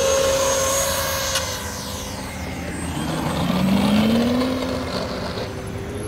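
Radio-controlled model aircraft motors: the Mirage 2000 model jet's motor runs with a steady high whine, then a propeller-driven model Cessna's motor rises in pitch and grows loudest about four seconds in.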